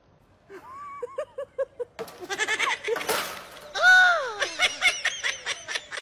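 A voice making a series of short pitched calls, then one long call that rises and falls about four seconds in.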